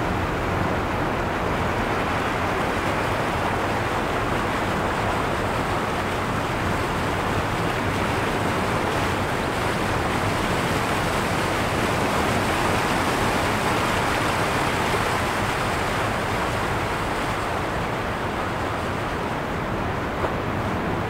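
A steady collage of layered rushing noise: waves on rocks, rushing and falling water and car road noise mixed into one dense wash, with no single event standing out.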